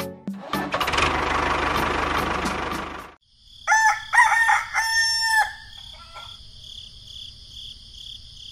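A rooster crows once over a steady high chirring of crickets that carries on after the crow. Before it, a steady rushing noise with a low rumble runs for about three seconds and cuts off suddenly.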